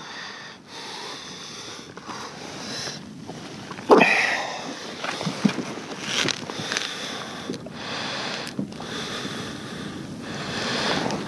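A man sniffing and breathing, with a short grunt about four seconds in, over close rustling and handling noise as a large thornback ray is turned and laid across his lap.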